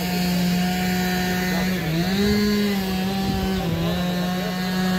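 A small engine running steadily at high speed, its pitch rising briefly a little after two seconds in and then settling back.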